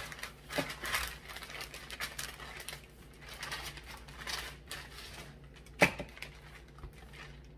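Parchment paper crinkling and rustling with irregular soft clicks as hands press and flatten cookie dough beneath it, with one sharper tap about six seconds in.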